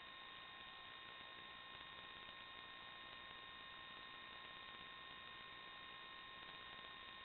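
Near silence: a faint, unchanging electrical hiss with a few steady high whining tones, the noise floor of an analog FPV receiver's recording rather than any sound from the drone itself.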